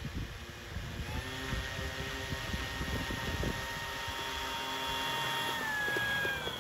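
Radio-controlled model Focke-Wulf Fw 190's motor and propeller whining steadily as it taxis on grass, the pitch dropping near the end as it slows down.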